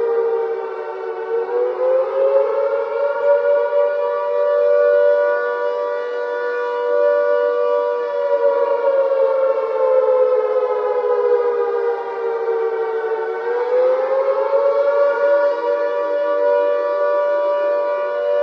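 Civil defense siren wailing, sounding two close notes at once. Its pitch rises, holds, sinks slowly, then rises again and holds.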